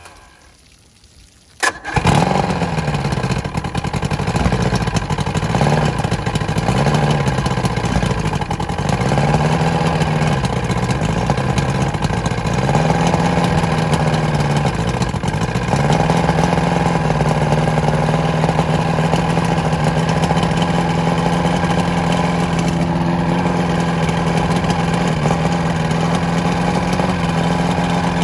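Evinrude 88 SPL V4 two-stroke outboard cold-started with the key after winter storage. A sharp click, then it fires about two seconds in and runs at an uneven idle that rises and falls, settling into a steady idle about halfway through.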